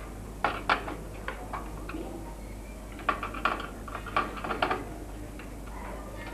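Screwdriver and screws clicking and tapping against the metal computer case and motherboard as the motherboard is screwed down. The sharp clicks come in two clusters, about a second in and again around three to four and a half seconds.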